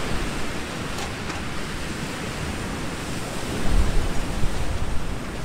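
Strong wind off the sea rushing steadily. Gusts buffet the microphone from a little past halfway.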